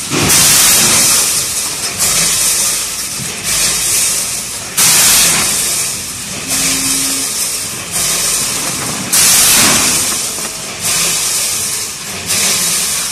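14-head multihead weigher running with a load of metal springs: a continuous hissing metallic rattle, with a sudden surge of clatter about every second or so that fades before the next.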